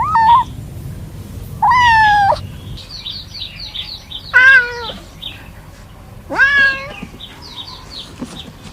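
Kittens meowing: four loud, high, drawn-out meows about two seconds apart, the calls of kittens looking for their littermates and mother. Faint, quick high-pitched chirps run between the later meows.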